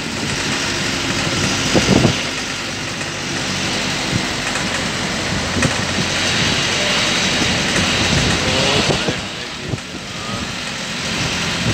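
Motor vehicle running on the road, heard from inside the cabin: a steady low engine hum under a hiss of tyres and wind. A brief knock comes about two seconds in.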